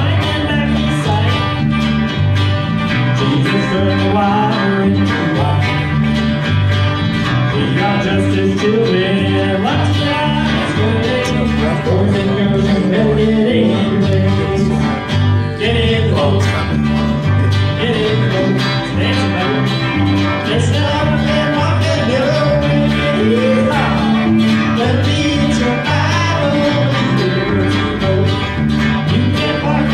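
Live country-gospel band playing: acoustic rhythm guitar, electric lead guitar and electric bass in a steady rhythm, with a melody line bending in pitch above the bass.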